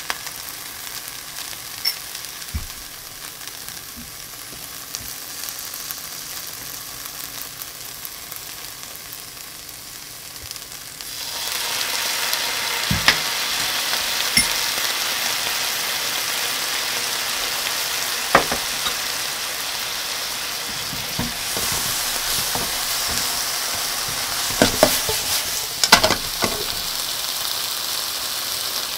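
Okra and thick fried tofu sizzling in a hot nonstick frying pan. About eleven seconds in, the sizzle turns suddenly much louder as soy sauce hits the pan. A few sharp knocks of utensils on the pan follow as the food is stirred.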